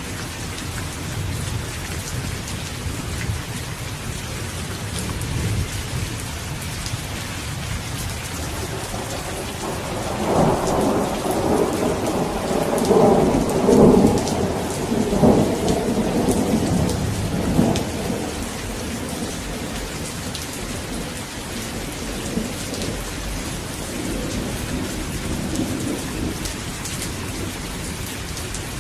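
Steady heavy rain falling, with a rolling rumble of thunder that swells about a third of the way in, peaks near the middle and fades over several seconds.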